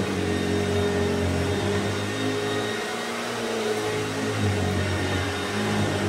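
1969 Hoover Junior 1346 upright vacuum cleaner running over carpet, its motor and beater brush roll giving a steady hum and whoosh that wavers slightly in pitch as it is pushed back and forth.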